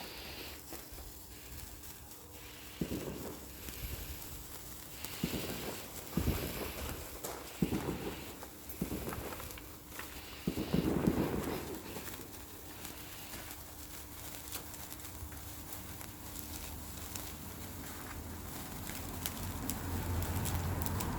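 A lit sparkler crackling, with a steady patter of sharp little clicks. A few duller bumps come at intervals, the longest about ten seconds in.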